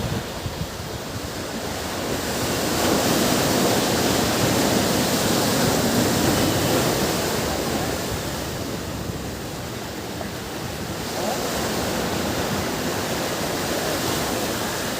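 Ocean surf washing on a beach: a steady rush of waves that swells a couple of seconds in, eases off, and builds again about eleven seconds in.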